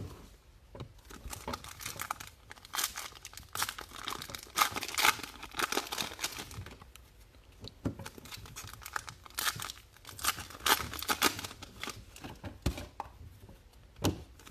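Trading-card pack wrappers being torn open and crinkled, in repeated bursts of ripping and rustling with short pauses between them.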